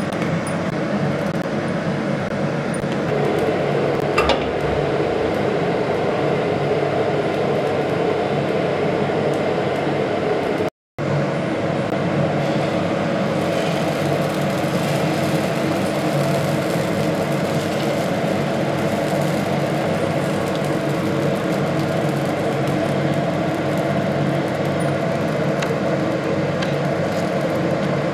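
A steady mechanical hum with a hiss over it, unchanging in level, broken by a split-second dropout about eleven seconds in.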